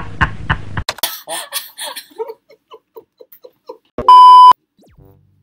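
A man's hearty laughing sound effect whose bursts repeat and fade away like an echo, cut off about four seconds in by a loud, steady half-second beep, the tone that goes with a TV colour-bar test pattern.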